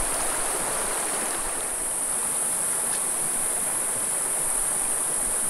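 Shallow rocky creek flowing and babbling steadily, under a constant high-pitched insect buzz.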